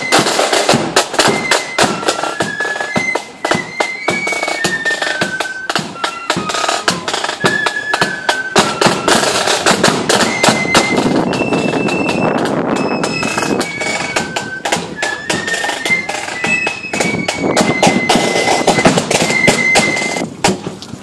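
Marching flute band playing: a high flute melody moving note to note over rapid, busy snare-drum beats and rolls.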